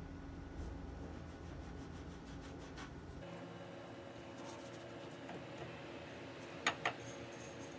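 Glass bowl pressed and twisted into rolled pizza dough on a floured countertop to cut out circles: soft rubbing and scraping, with two sharp knocks close together near the end.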